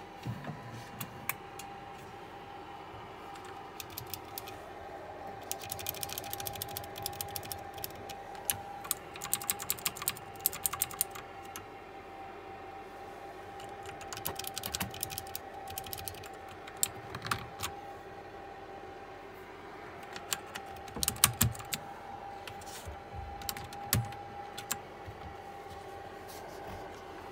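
Mechanical keyboard with clicky blue switches (KLIM Domination) being pressed, giving sharp key clicks in quick runs with pauses between them.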